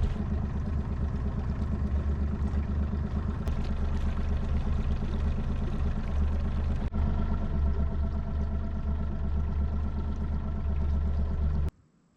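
Boat motor running steadily with a low, even drone. It is briefly interrupted about seven seconds in and stops abruptly near the end.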